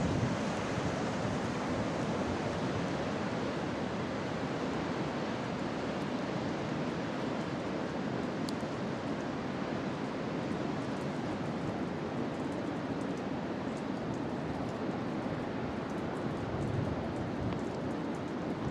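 Rough ocean surf breaking on a rocky shore: a steady, even wash of noise with no distinct breaks or rhythm.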